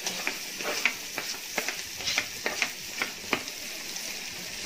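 Chopped onions and ginger-garlic paste frying in foaming melted butter in a pot: a steady sizzle with frequent sharp pops and crackles, thinning out after about three and a half seconds.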